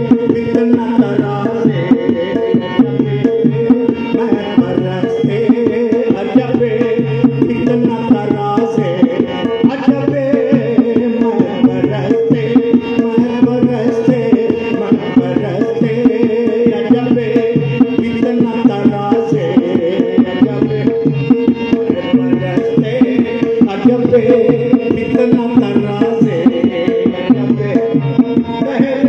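Qawwali music: tabla playing a steady driving rhythm under sustained held notes from a harmonium.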